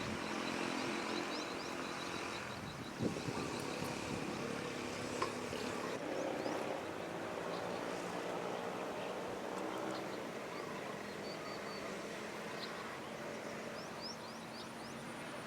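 An engine running steadily at a low, even pitch, with birds chirping over it and a couple of sharp clicks about three and five seconds in.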